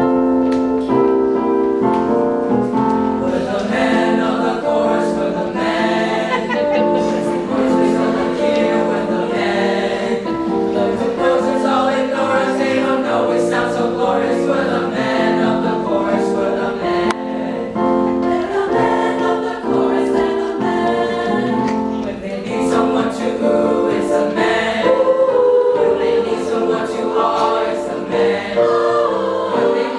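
Middle school chamber choir singing in several-part harmony, the singing starting abruptly at the outset.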